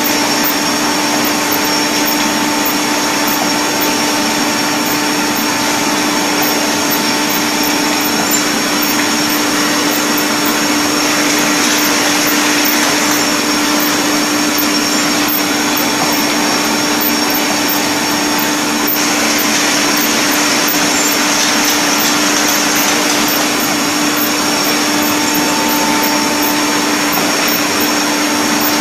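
Automatic pickle jar filling machine and its jar conveyor running: a loud, steady mechanical whir with a constant hum.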